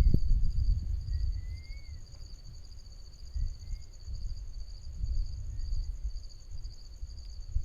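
Steady chorus of insects trilling in two high, finely pulsing bands, with a few short rising whistled calls. Under it runs a low, gusty rumble that is loudest at the start and eases off about a second in.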